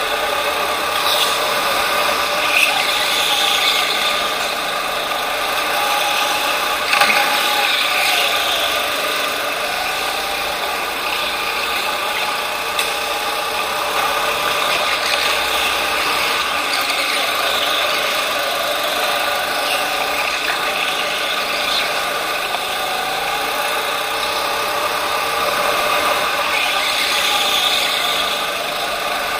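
Racing go-kart heard from on board, its motor running continuously at speed, its pitch rising and falling a little through the corners.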